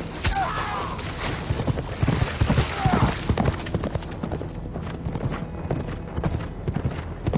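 Horses galloping, hooves thudding irregularly, with a whinny near the start and another about three seconds in.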